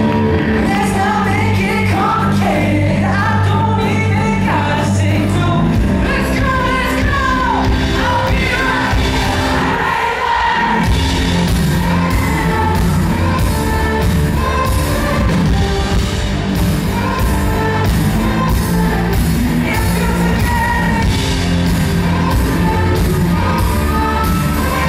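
Live pop-rock band: a male lead vocal sung into a handheld mic over drums, bass guitar and electric guitar with a steady beat. About ten seconds in, the bass drops out for a moment before the full band comes back in.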